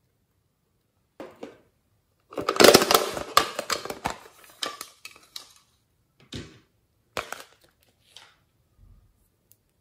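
Hard plastic containers being handled and snapped open close to the microphone. A dense run of clattering, crackling plastic clicks comes just before the middle, then a few single sharp clicks.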